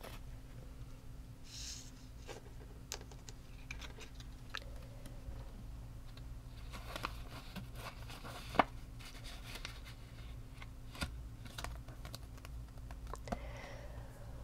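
Paper cash envelopes and cards being handled on a wooden table: soft rustling of paper with scattered light clicks and taps, the sharpest click a little past halfway.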